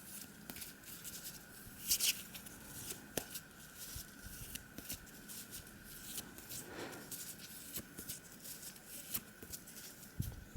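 Tarot cards being handled and shuffled: soft, irregular flicks and rustles of card stock, with a louder rustle about two seconds in, over a faint steady high whine.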